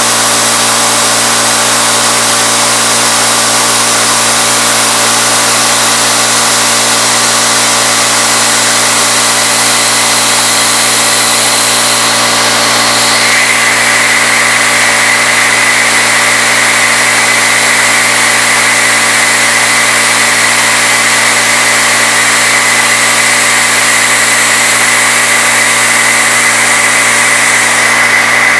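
CNC-retrofitted Bridgeport knee mill running its spindle at 2200 RPM while a 3/8-inch end mill cuts aluminum, a loud steady hum and hiss of the machine and cutter. About halfway through the cutting tone changes, dropping to a lower, louder whine that holds steady.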